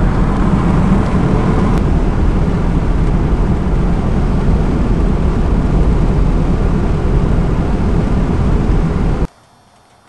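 Steady road and engine noise of a moving car, heard from inside the cabin. It cuts off abruptly about nine seconds in, leaving a much quieter background.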